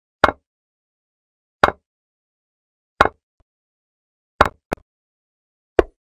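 Chess-program move sound effects: a short click of a piece being set down on the board, five times about a second and a half apart, with the fourth one doubled.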